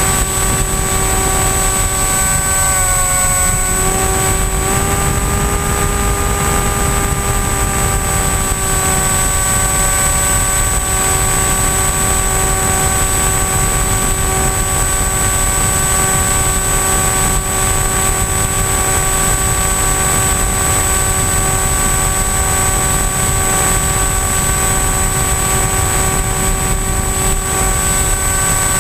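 Electric motor and propeller of an AXN Floater-Jet RC foam plane in flight, heard from a camera on the airframe. It gives a loud, steady whine that dips in pitch about three seconds in and comes back up a second or two later, with wind noise underneath.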